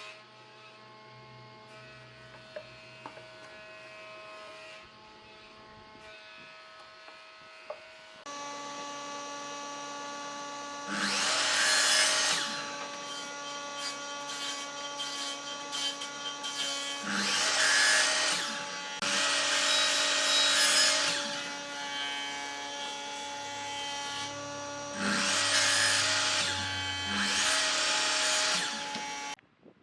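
An electric power tool switches on about eight seconds in and runs steadily, getting louder five times for a second or two as it works into wood, then cuts off just before the end.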